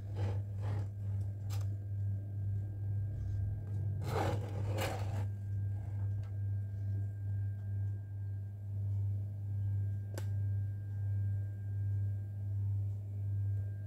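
A steady low hum with a gently pulsing level. Over it come a few brief rustles or clicks near the start, a longer scraping noise about four seconds in, and a single sharp click around ten seconds in.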